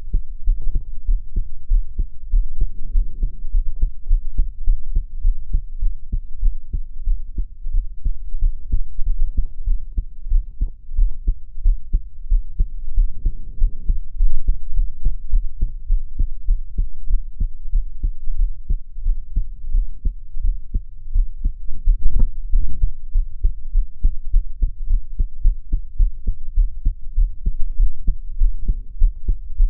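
A woman's heartbeat recorded at the chest while she is crying: a steady, regular train of deep low thumps. One louder knock stands out a little past the middle.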